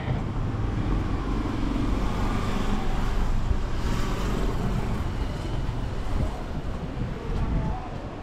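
Road traffic passing on the avenue, one vehicle swelling and fading about halfway through, with low wind rumble on the microphone.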